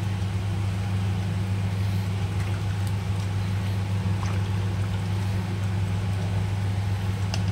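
Rice being stirred with a ladle into a pot of boiling mutton broth, with bubbling and a few faint scrapes, over a steady low hum.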